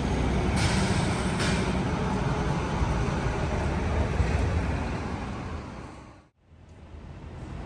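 Scania N94UD double-decker bus running with a steady low rumble, with two short hisses about half a second and a second and a half in. The sound fades and cuts out for a moment near the end, then comes back quieter.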